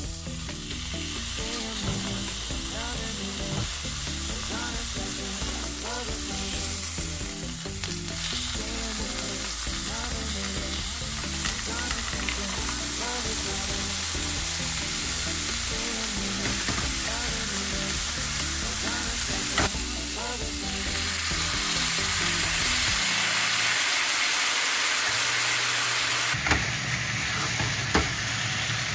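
Beef steak frying in oil in a nonstick pan: a steady sizzle that grows louder in the second half, with a few sharp clicks near the end.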